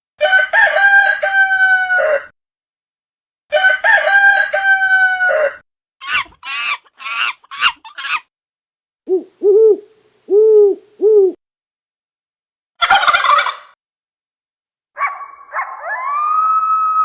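A rooster crowing twice, each crow about two seconds long, followed by a run of short calls and then four brief lower calls. Near the end a sudden noisy burst, then another animal begins a long drawn-out call that rises and then holds.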